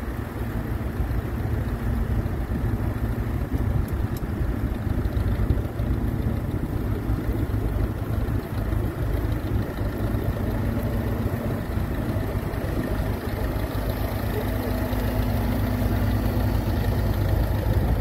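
Vintage tractor engine running steadily as it pulls a plough through the furrow, growing gradually louder as it draws closer.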